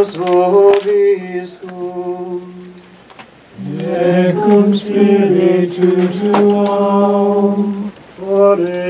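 Latin liturgical chant: a single man's voice sings a phrase held on one pitch, then after a short pause several voices answer with a longer, moving response, and near the end the single voice begins a new phrase on one pitch.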